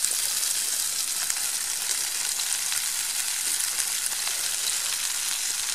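Food frying in a small steel pan set on campfire embers: a steady sizzle with small crackles.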